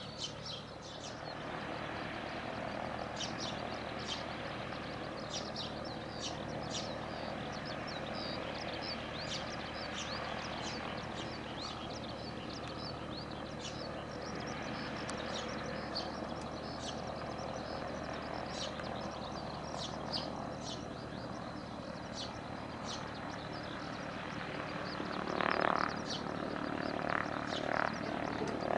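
Cessna 172P Skyhawk's four-cylinder Lycoming engine and propeller running at low taxi power, a steady hum, with many short high bird chirps over it. A few louder bursts come near the end.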